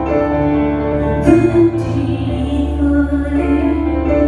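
Slow, quiet live performance: a woman singing over grand piano and keyboards, with long held notes and a sustained low bass underneath.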